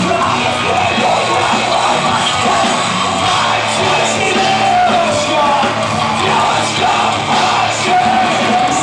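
Live heavy rock band playing loudly, with yelled, shouted vocals over the full band.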